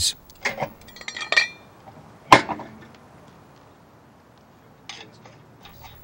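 Light metallic clinks and a short ringing jingle about a second in, then one sharp metal clank with a brief ring a little after two seconds, as a lug wrench levers a spare tire's steel wheel up onto the wheel studs.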